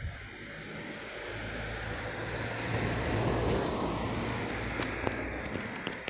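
A car driving past on the road, its tyre and engine noise swelling to a peak about halfway through and then fading away. A few light clicks come near the end.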